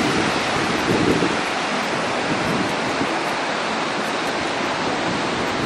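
Wind-driven waves breaking on a pebble beach, a steady rushing surf, with gusts of wind buffeting the microphone.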